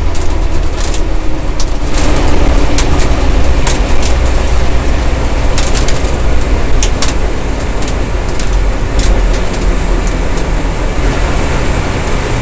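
Drag race car's engine running at a steady lumpy idle, heard loud from inside the cockpit, with sharp clicks and crackles throughout.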